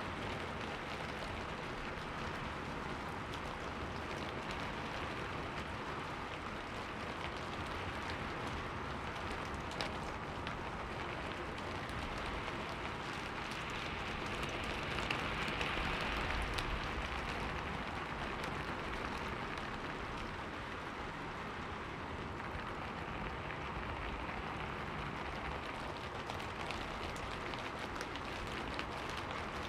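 Steady rain falling, an even hiss with scattered drop ticks, swelling slightly about halfway through.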